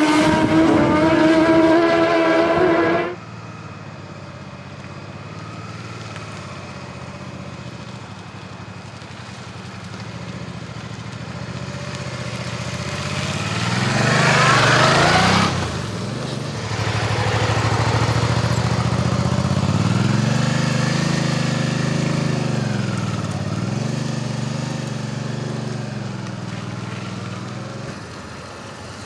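Racing motorcycle screaming past at high revs for about three seconds, cut off abruptly. Then a Suzuki V-Strom's V-twin engine running at low speed through a slow slalom, its revs rising and falling, passing close and loudest about halfway through.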